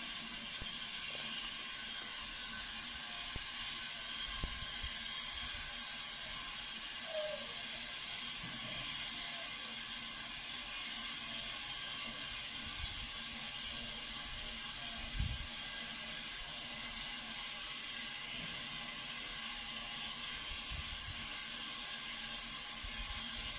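Steam locomotive standing still, with steam escaping in a steady, even hiss.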